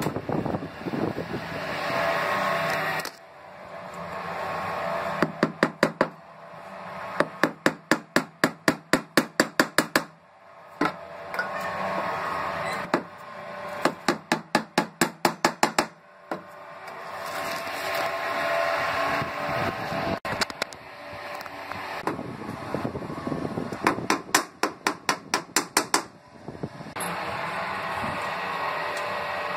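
Small hammer tapping the aluminium sliding-glass channel track into place under a cabinet shelf, in four quick runs of rapid strikes at about four a second.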